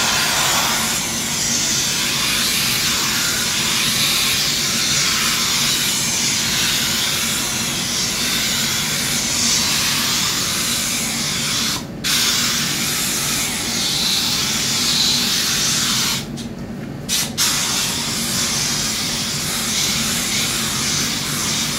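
Kärcher steam cleaner jetting steam with a steady hiss. The steam stops for a moment about twelve seconds in and again for about a second a few seconds later.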